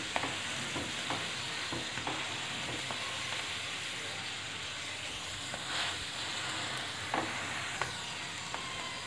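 Oil sizzling steadily under a stuffed potato paratha (aloo paratha) shallow-frying on a nonstick tawa. A few light knocks and scrapes come from a wooden spatula pressing the bread.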